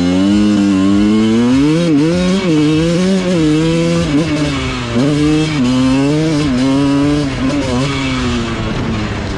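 Two-stroke motocross bike engine ridden hard, revving high with its pitch rising and falling repeatedly as the throttle is worked.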